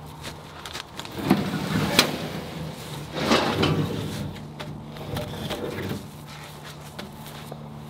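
Round wooden fence posts scraping and knocking as they are dragged off a pickup truck's bed, with a sharp knock about two seconds in and more scraping about three seconds in. A steady low hum runs underneath.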